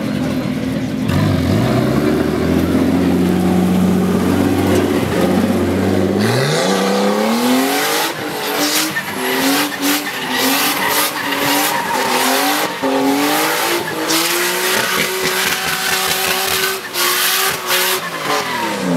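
Nissan Skyline R32's RB25DET turbocharged straight-six engine driving the car through a smoky drift, tyres screeching on the tarmac. The engine runs steady and low for about six seconds, then revs up sharply and stays high, rising and dipping with the throttle, before dropping away near the end.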